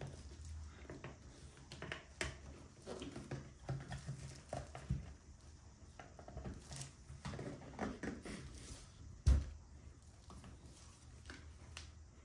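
Light clicks and taps of hard plastic being handled as a steering wheel's back cover is pried at without coming off, with one louder knock about nine seconds in.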